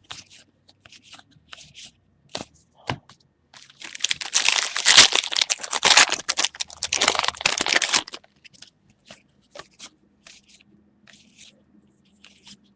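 Trading-card pack wrappers being torn open and crinkled, with a loud stretch of tearing and crumpling about four to eight seconds in and lighter crinkles and clicks of handling before and after it.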